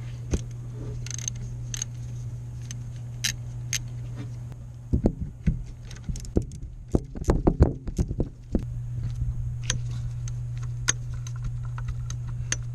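A socket wrench and ratchet clinking and clicking on the accessory-belt bracket bolts as they are loosened, with a busy run of quick metal clicks in the middle. A steady low hum runs underneath and drops out during the clicks.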